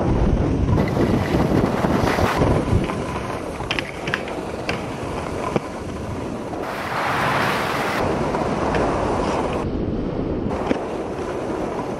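Wind buffeting a moving camera's microphone while skiing, with the hiss and scrape of skis sliding on packed snow. The noise changes abruptly a few times.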